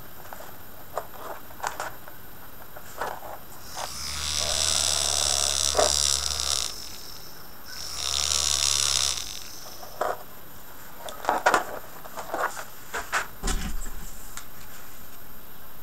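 Small 9-volt DC motor spinning a sandpaper sanding drum in two short runs, a low hum with a high whine, about four seconds in for a couple of seconds and again about eight seconds in more briefly, as its bare wires are touched to power. Small clicks and rustles of the wires being handled come before and after.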